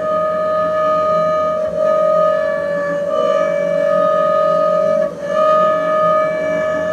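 Double bass bowed arco, holding one high, steady note rich in overtones. The bow changes direction about 2, 3 and 5 seconds in, each bringing a brief dip and a slight shift in pitch.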